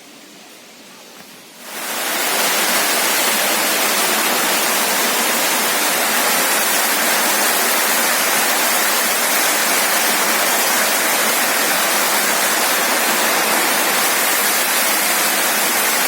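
A loud, steady rush of water that comes in suddenly about two seconds in, after a faint, quiet stretch.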